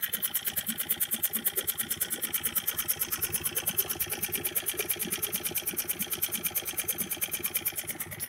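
A small motor running steadily with a fast, even pulsing.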